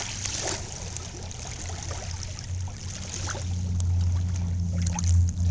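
Small calm lake waves washing up a sandy shore and drawing back, the foam fizzing and crackling as it sinks into the sand. From about two seconds in a low steady hum grows beneath the water and is loudest near the end.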